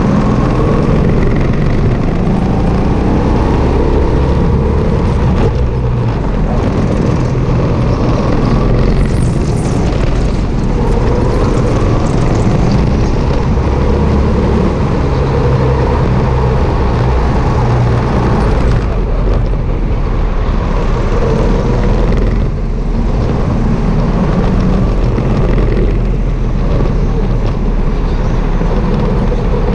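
Sodi RT8 rental go-kart's petrol engine running hard, its pitch rising and falling as the revs change through the corners. It is heard up close from a camera mounted on the kart itself.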